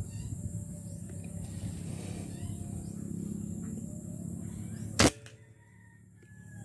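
A single sharp air rifle shot about five seconds in, over a steady low outdoor background.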